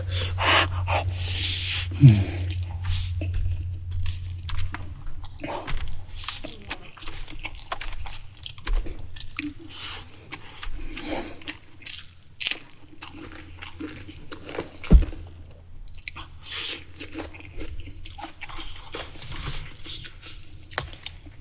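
A person chewing and biting food close to the microphone: irregular wet mouth sounds with crunchy bites. A low steady hum sits underneath for the first two-thirds.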